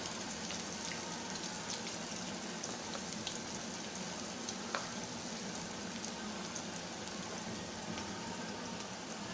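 Gram-flour batter pakoras deep-frying in hot oil: a steady sizzle with scattered small crackles and one sharper pop a little under five seconds in.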